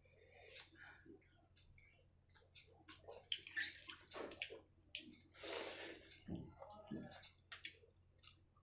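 Fingers squishing and squelching through wet rice and runny curry gravy on a steel plate, in short irregular bursts, with a longer rush of noise a little past the middle.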